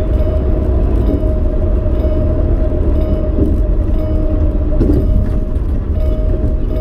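Cabin noise of a kindergarten shuttle van on the road: a steady low engine and road rumble with a thin steady whine on top.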